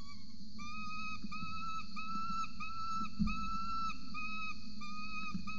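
Young peregrine falcon's begging calls: a run of even, whistled whining notes, about two a second, each held briefly on one pitch. Steady insect-like buzzing lies underneath.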